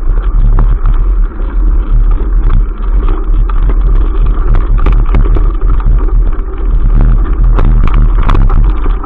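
Mountain bike rolling over a bumpy dirt trail: steady rumble of wind buffeting the bike-mounted camera's microphone, with the bike and camera mount rattling and knocking over the bumps, the knocks coming thickest near the end.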